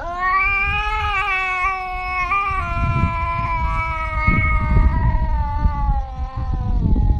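Domestic cat giving one long drawn-out meow, close to a yowl, that lasts about seven seconds with its pitch slowly sinking toward the end. A low rumbling noise runs underneath.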